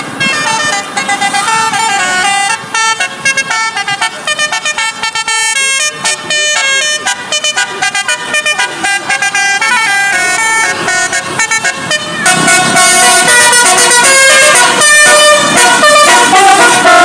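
Tour bus 'telolet' multi-tone air horn playing a quick tune of changing notes, louder from about twelve seconds in.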